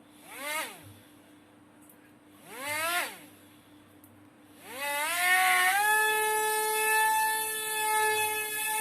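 Small electric motor of a toy RC helicopter whining up in pitch and straight back down twice in short throttle blips, then spinning up about five seconds in and holding a steady high whine.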